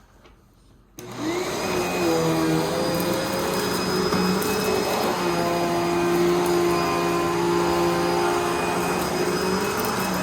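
A Hoover Pet Vac Rewind Legacy upright vacuum, fitted with a new motor, is switched on about a second in. Its motor spins up with a rising whine and then runs steadily at full speed.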